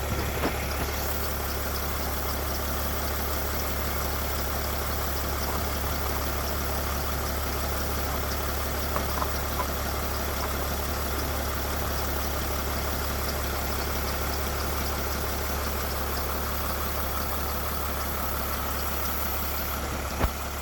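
An engine idling steadily with an even hum. There are a few faint ticks about halfway through and a single sharp knock near the end.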